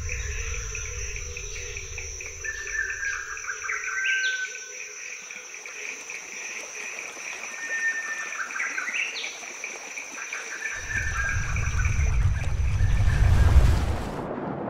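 Insects trilling steadily with a few short bird calls over them; a low rumble swells up near the end.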